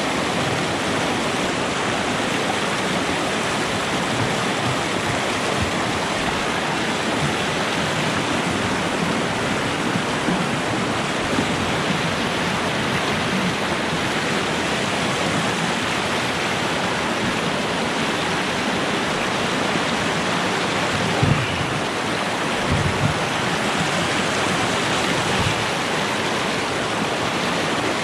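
Fast-flowing river water rushing steadily, with a few low thumps about three-quarters of the way through.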